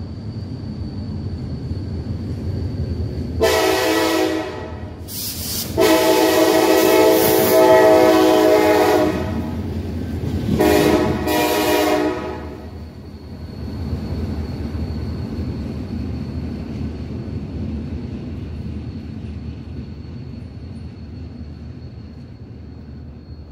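A locomotive's multi-chime air horn sounding three blasts, the middle one the longest at about three seconds, over the steady rumble of a passing train, which slowly fades after the horn stops.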